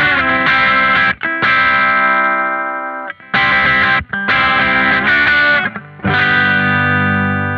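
Electric guitar on its humbucker pickup through a NUX MG-30 multi-effects unit with the tube screamer overdrive on, playing crunchy chords with short breaks between them. The last chord, struck about six seconds in, rings on and slowly fades.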